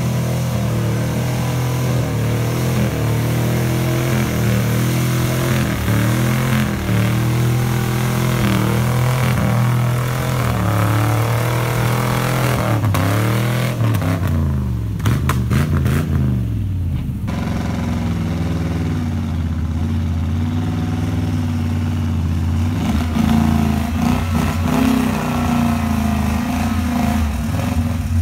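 Off-road 4x4 truck engines revving hard under load as the trucks churn through deep mud with spinning wheels. The engine pitch rises and falls with the throttle, dipping and climbing again around the middle.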